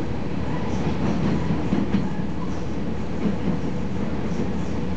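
Cabin sound of a KiHa 40 series diesel railcar running along the line: a steady low rumble of engine and wheels on the track, with a couple of faint knocks about two and three seconds in.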